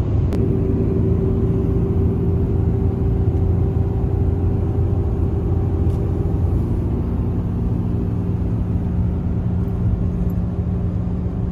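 Steady drone of a pickup truck driving at highway speed, heard from inside the cab: engine and road noise with a steady hum.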